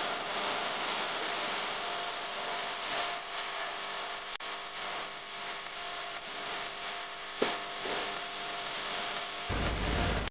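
Metal spoon stirring and scraping thick palm-fruit batter around a bowl, over a steady background hiss. A single sharp knock comes about seven seconds in.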